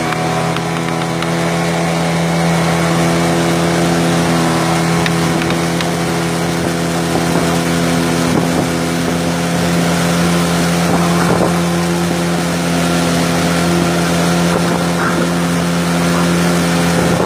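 15 hp outboard motor running steadily at one even pitch as the speedboat travels under way, with water rushing along the hull.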